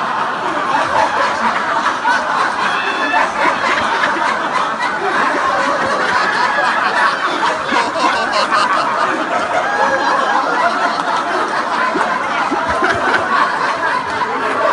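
A roomful of people laughing together, loud and unbroken, in a laughter-yoga exercise of deliberate group laughter.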